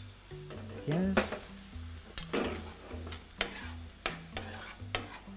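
Diced onion and green pepper sizzling gently in olive oil in a stainless steel sauté pan. A metal spoon scrapes and clinks repeatedly against the pan and the ceramic bowl as the pepper is tipped in and stirred. Soft background music plays underneath.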